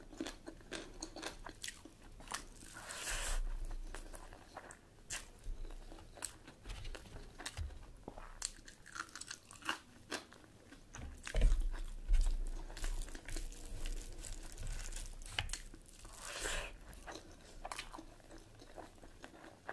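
Close-miked eating of a mutton curry meal: chewing and biting with many short, sharp crackles, and one louder low thump about halfway through.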